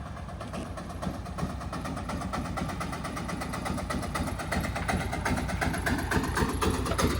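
Heavy vehicle's diesel engine running with a rapid, even pulse, growing gradually louder.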